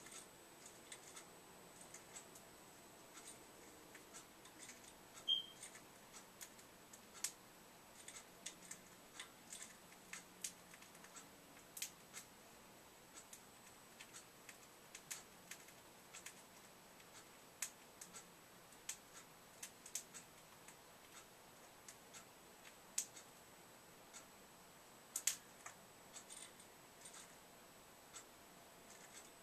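Faint, irregular clicks and taps from a parrotlet moving about its cage, with one short high chirp about five seconds in.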